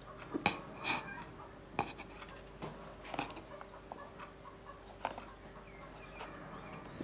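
Quiet room tone with a faint steady hum, broken by a scatter of small, faint clicks and a short squeak near the end.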